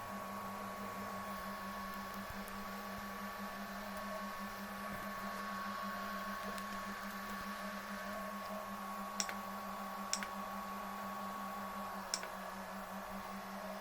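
Homemade 3D printer running under test: a steady electrical hum with a faint steady whine, and three sharp clicks in the second half.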